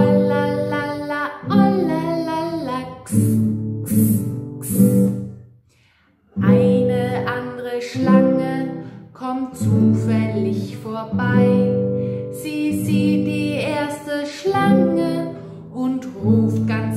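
A woman sings a children's song to her own strummed acoustic guitar, with a brief break about five and a half seconds in.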